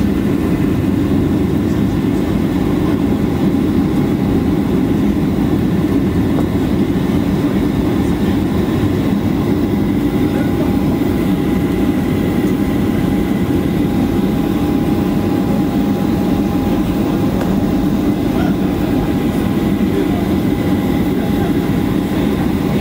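Steady cabin noise inside a Boeing 737-800 heard from a passenger seat: a dense low rumble of engines and airflow, with a faint steady whine above it.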